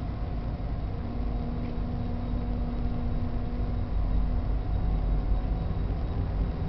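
Car ferry's engines running under way: a steady low drone with a faint hum.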